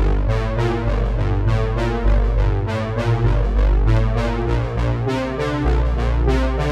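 Background music: keyboard and synthesizer over a steady beat.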